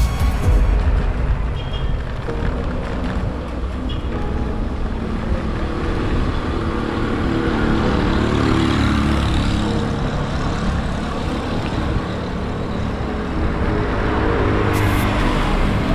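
Road traffic noise with low wind rumble on the microphone while cycling along a highway. A passing vehicle swells louder around the middle.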